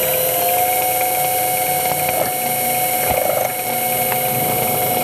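Mini mill's spindle motor running steadily as a twist drill bores into an aluminium block, a steady two-tone whine over a hiss.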